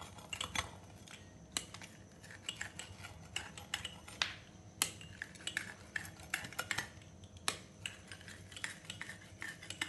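Pizza cutter wheel rolled back and forth over a sheet of warm sesame brittle on a ceramic plate, scoring lines into it: a faint, irregular run of small clicks, crackles and scrapes.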